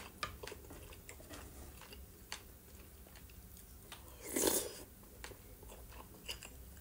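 Close-miked chewing of boiled pelmeni dumplings eaten with a spoon: soft wet mouth clicks and smacks, with one louder burst a little past four seconds in as another spoonful goes into the mouth.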